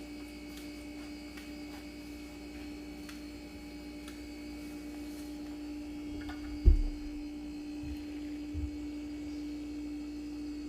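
Steady electrical hum, with a single dull thump about two-thirds of the way through and a fainter one a couple of seconds later.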